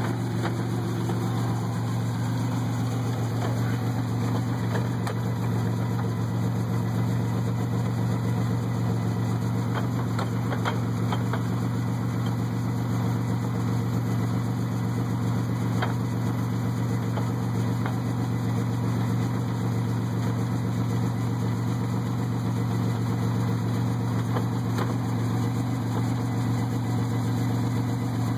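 A 4x4 truck's engine running at a steady idle, with a few faint clicks scattered through it.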